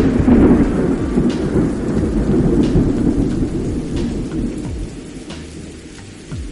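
A long roll of thunder, loudest at the start and fading away over about five seconds, with rain pattering.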